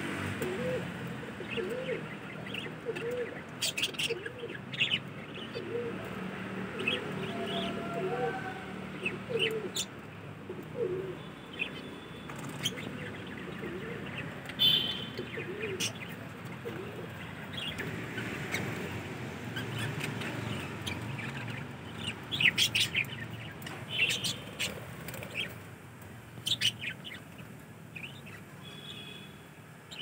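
Caged budgerigars and finches chirping and chattering, with many short high chirps and a pigeon's low, repeated cooing underneath.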